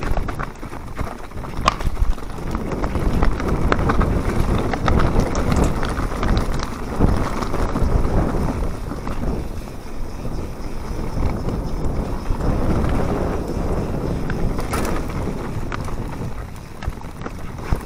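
Full-suspension mountain bike descending a forest dirt trail: tyres rolling over dirt and dry leaves, the bike rattling with frequent clicks and knocks over the bumps, and wind buffeting the camera microphone.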